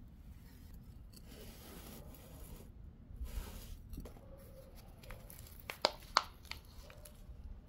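Thin plastic nursery pot squeezed and handled in the hands to loosen the plant's root ball, with a soft rustle of soil and then two sharp plastic crackles close together late on.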